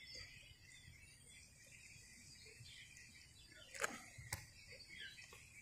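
Quiet roof-top background with faint bird chirps; near the end, two short sharp clicks about half a second apart as the caulking gun's trigger is worked while sealant is laid along the shingle edge.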